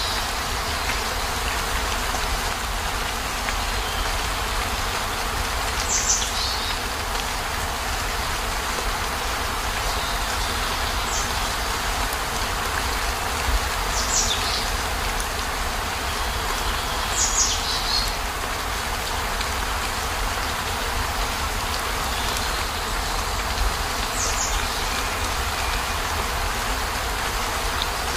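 Steady rain on a camper van's roof and windows, heard from inside, with a constant low rumble underneath. A brief high, descending chirp-like sound comes every few seconds, about five times.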